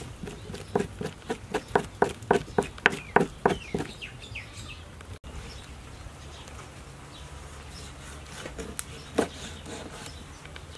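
Quick run of knocks and scrapes as a spoon scrapes fish flesh against a wooden chopping board, about four strokes a second, with birds chirping. Later, a few cleaver strokes on the board.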